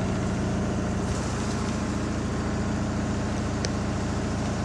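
Washing machine drum spinning at a steady speed in its final spin, with an even motor hum. It has not yet ramped up to full spin speed.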